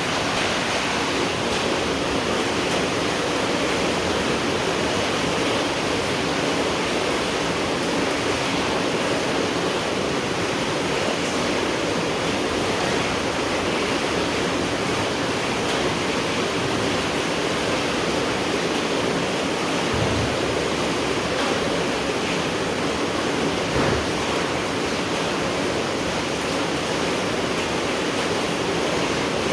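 Steady night rain falling, an even hiss that does not change, with two brief low thumps in the last third.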